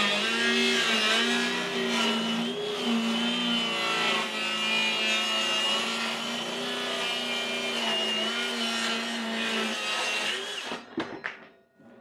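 Hilti Nuron 7 1/4-inch cordless circular saw cutting through a walnut board, its motor pitch wavering as the load on the blade changes. The sound drops away and stops about eleven seconds in as the cut finishes.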